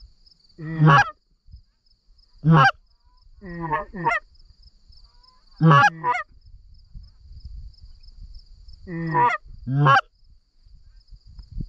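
Canada geese honking: about eight short, loud honks at irregular intervals, some in quick pairs.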